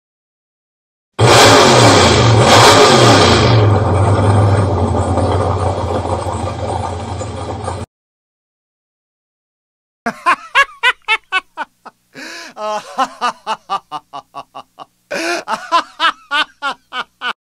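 Hot rod engine revving loudly, then running on and fading before it cuts off suddenly. After a short gap, a person laughs heartily in three runs of quick ha-ha bursts.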